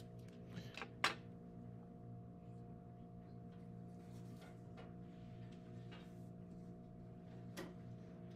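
Steady electrical hum with the faint scratching of a mechanical pencil drawing on paper. A sharp tap comes about a second in.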